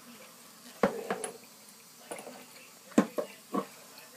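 Dishes knocking and clinking: a series of sharp knocks, loudest about a second in and again about three seconds in.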